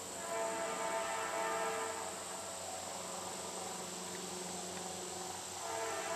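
Air horn of an approaching CSX freight locomotive sounding a chord in the distance: one long blast of about two seconds near the start, then another long blast beginning near the end, the usual warning for the grade crossing.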